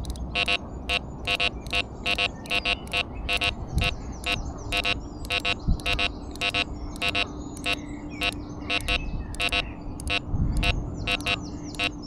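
Background electronic music of quick, short, repeated synthesizer notes, with a steady held tone joining about halfway through, over a low rumble.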